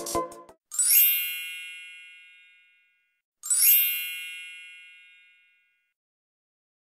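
The tail of an electronic intro jingle, then two bright chime sound effects about three seconds apart, each a quick upward shimmer that rings on and fades away over about two seconds.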